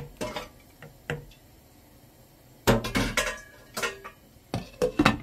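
Cookware clinking and knocking on a stainless steel pot: a wooden spoon stirring, then a glass lid being handled and set on. A few light knocks come first, then louder ringing clinks in two clusters, in the middle and near the end.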